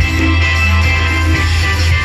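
Loud highlife dance music with a heavy, steady bass.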